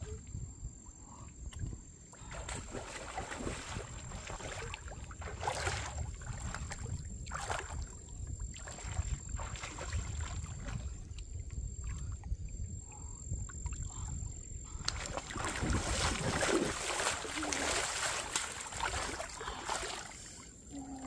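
A person wading through shallow water, with a splash and slosh at each stride. The splashing gets louder and busier near the end.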